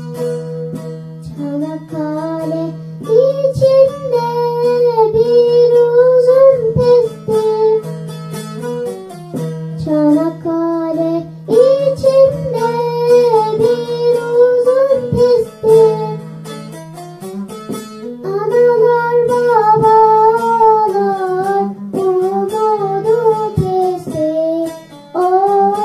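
A young girl singing a Turkish folk song (türkü), accompanied by a bağlama, a long-necked Turkish lute, plucked and strummed. She sings in phrases with short instrumental breaks between them, the first one just before her voice comes in at the start.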